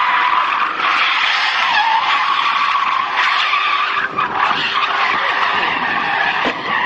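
Car tyres screeching continuously as a sedan slides sideways in a drift, with a brief break in the screech about four seconds in.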